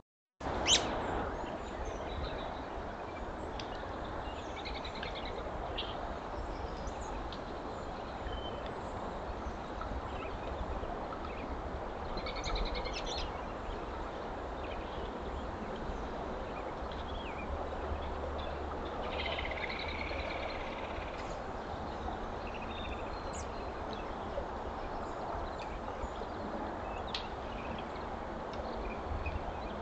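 Steady outdoor hiss from a trail camera's microphone in snowy winter woods, with scattered faint high chirps of small birds. A short dropout and a sharp click come just after the start.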